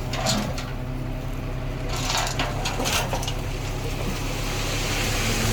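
Diesel engine of heavy earthmoving machinery running steadily, with loose soil and stones crunching and scraping in bursts near the start and again about two to three seconds in.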